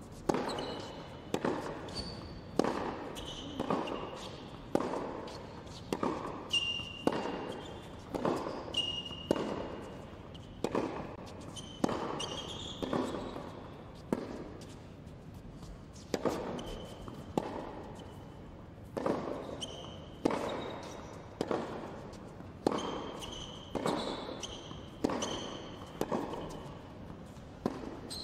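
Tennis ball struck by rackets and bouncing on an indoor hard court in a steady rally, a hit or bounce about every 0.7 s, each echoing in the large hall. Short high shoe squeaks come between the shots.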